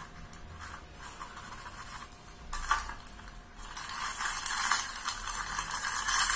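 Crinkling, rustling plastic-bag noise from a video playing through a smartphone's speaker, picking up about four seconds in.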